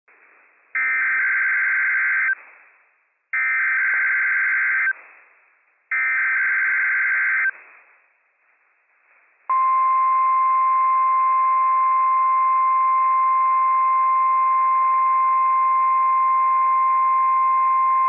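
NOAA Weather Radio Emergency Alert System test signal. Three bursts of digital SAME header data, each about a second and a half long with a second's gap between them, are followed about nine and a half seconds in by the steady 1050 Hz warning alarm tone. The alarm tone holds one pitch to the end. This is the station's Required Weekly Test of the warning alarm.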